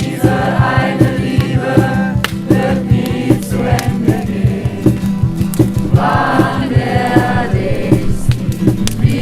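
Music with a steady beat and group voices singing or chanting in short phrases.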